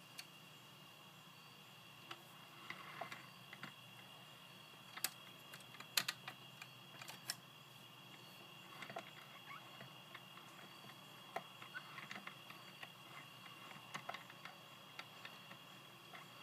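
Scattered small clicks and taps of hands handling a 1/18-scale diecast model car: the hinged rear hatch being lifted and the model being moved about. The sharpest clicks come about 5 and 6 seconds in, over a faint steady high hum.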